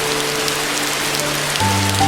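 Steady rain hiss with soft, sustained piano notes over it; a new chord sounds about one and a half seconds in.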